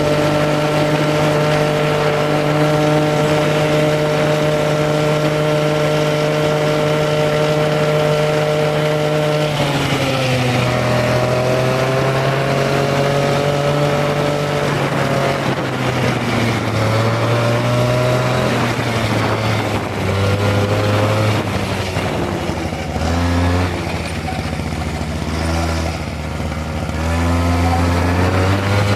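Motor scooter engine running while under way. It holds a steady note for about the first nine seconds, then its pitch drops and rises again and again as it slows and speeds up. It sits low a little past two-thirds of the way through and climbs again near the end.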